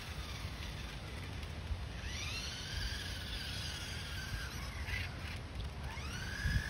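Whine of a Maisto Ford Bronco RC truck's electric drive motor, rising in pitch as the truck speeds up about two seconds in, and again near the end, where it levels off and holds a steady tone.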